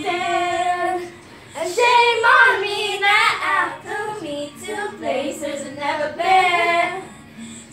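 Young girls singing with long held notes and sliding pitch, breaking off briefly about a second and a half in.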